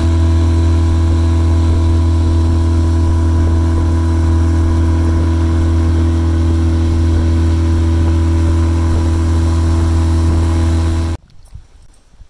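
Small boat's outboard motor running at steady cruising speed, a loud even hum with a strong low drone. It cuts off suddenly about eleven seconds in, leaving faint ticks and rustles.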